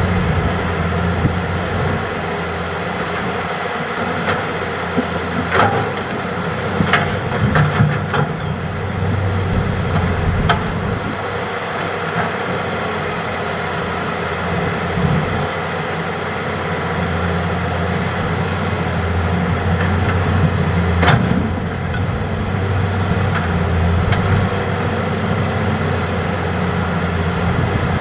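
Hitachi hydraulic excavator's diesel engine running steadily under load, with several sharp knocks from about five to eleven seconds in and one more about three quarters of the way through.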